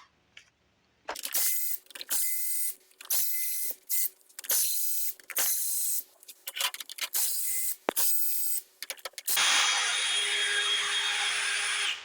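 A power tool running in a series of short bursts, then one longer steady run near the end, backing out the cylinder head bolts on a Briggs & Stratton engine.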